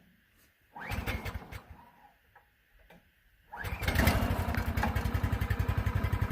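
Subaru small engine on a sawmill being pull-started: a first short cranking burst dies away, then about three and a half seconds in it catches and settles into a steady, even run.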